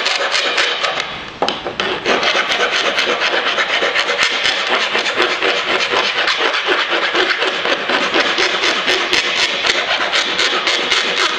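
Hand file rasping back and forth in quick, steady strokes along the edge of an aluminium part, bevelling it for welding. There is a brief pause about a second and a half in.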